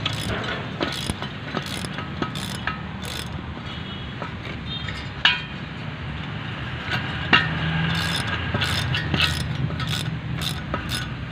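Ratchet wrench clicking as bolts are tightened into the brake rotor's puller holes to press the rotor disc off the hub, with two sharper metal clinks about five and seven seconds in.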